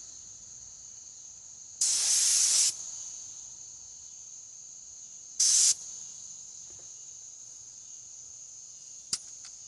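Air-fed paint spray gun hissing in two bursts of spraying paint, one nearly a second long about two seconds in and a short one about five and a half seconds in.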